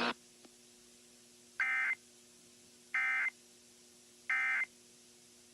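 Emergency Alert System end-of-message (EOM, "NNNN") digital data tones, sent as three short buzzy bursts about 1.3 seconds apart. They mark the end of the alert or test. A faint steady hum runs beneath them.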